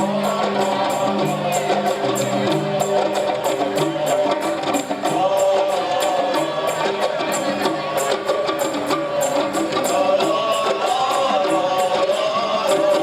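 Qasidah music: rebana frame drums and tambourine jingles keep a steady beat under a held, wavering melody and stepping bass notes.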